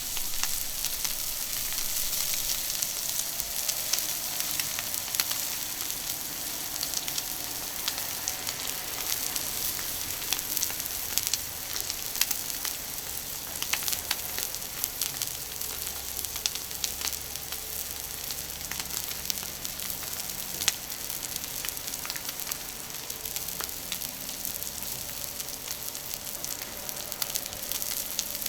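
A beef steak sizzling on an iron griddle with a steady hiss and frequent small pops and crackles, the meat searing on an unoiled plate.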